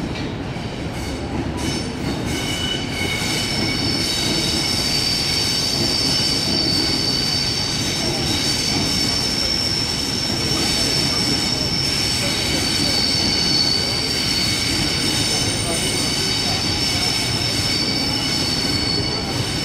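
Double-deck electric suburban train moving slowly through the station, its steel wheels squealing on the rails in several steady high-pitched tones over a low rumble. The squeal sets in about two seconds in and holds.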